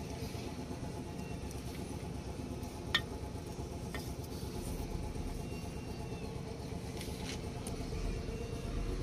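Steady low rumble of a running engine, with a sharp click about three seconds in and a smaller click a second later.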